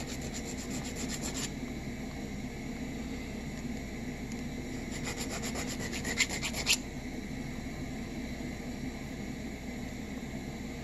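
A hand file rasping across the threads of a metal double-male coupler in quick short strokes, dressing threads that were damaged in a vise. It comes in two bursts, at the start and again about five seconds in.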